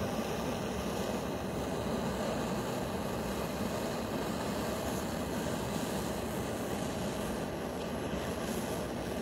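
Lighter torch flame burning with a steady, even rushing hiss while it heats steel to melt plumber's solder.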